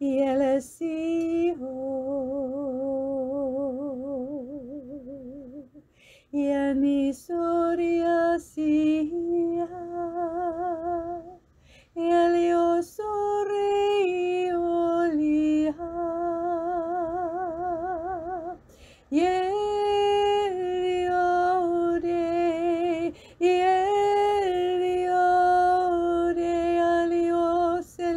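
A woman singing unaccompanied in the Spirit, in wordless syllables: long held notes with a wide, even vibrato, in phrases broken by short pauses.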